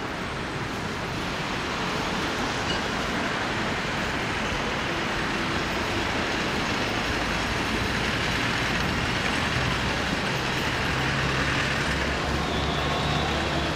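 Street ambience of road traffic: a steady rushing noise, with a low engine hum joining in near the end.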